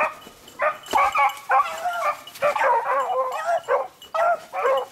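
A beagle baying on a rabbit's scent line: a run of short, pitched barks with one longer, wavering bay near the middle, a sign that the hound is trailing the rabbit.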